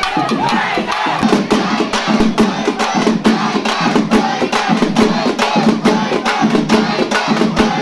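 Festival drums beaten in a fast, steady beat, about four strokes a second, over a shouting crowd. The drumming accompanies a devotee's trance dance.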